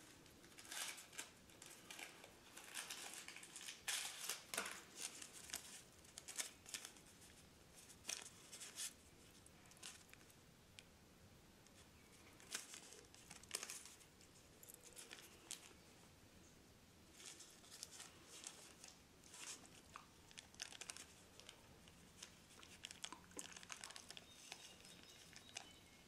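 Cigarette rolling paper crinkling and rustling between the fingers as loose dried tobacco is rolled into it by hand, in short, soft bursts, busiest in the first few seconds and again about halfway through.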